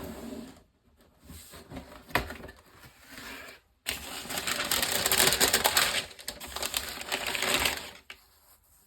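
Shoe box and paper packaging handled by hand: bursts of rustling and crinkling full of small clicks, loudest and densest from about four to eight seconds in, with a single sharp click about two seconds in.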